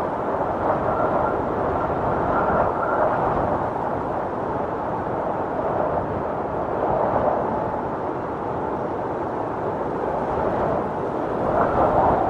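Storm wind blowing in a steady rush that swells and eases, with a stronger gust building near the end.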